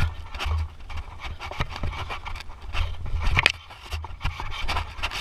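Mountain bike ridden over a rough dirt and leaf-litter trail: the bike rattles and clatters irregularly while the tyres scrape over the ground, over a steady low rumble, with a louder clatter about three and a half seconds in.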